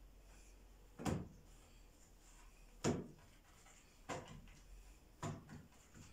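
Four soft knocks, about a second apart, with a couple of fainter ones between: meat-stuffed flatbread loaves being turned over and set down on a plate while they are brushed with oil.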